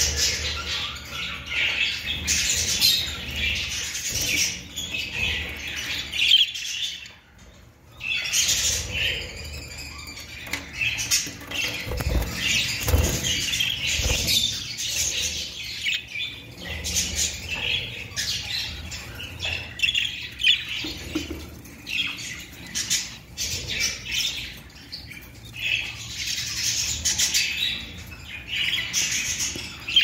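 Budgerigar chicks squawking almost without pause, raspy and scratchy, with a brief lull about seven seconds in.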